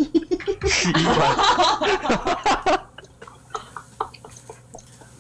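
A man laughing in short bursts and muttering a curse. About three seconds in it gives way to a quieter stretch of scattered light clicks from computer keys or a mouse.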